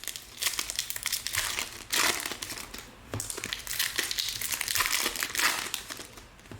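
Foil trading-card pack wrappers crinkling and crackling in irregular bursts as packs are handled and torn open.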